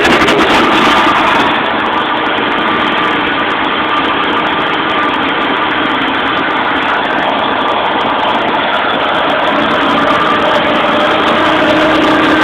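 Supercharged 5.4-litre SOHC Ford V8 with a posi-ported Eaton M112 supercharger, idling steadily.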